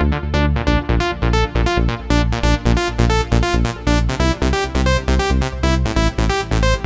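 Roland SH-201 virtual-analog synthesizer playing a trance patch: a fast, even run of short repeated notes over a sustained bass line, which changes about half a second in.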